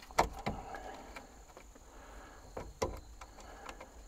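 A few sharp metallic knocks and clicks from hand work on truck parts: two close together near the start and two more a little before three seconds in. A faint steady high insect buzz runs behind them.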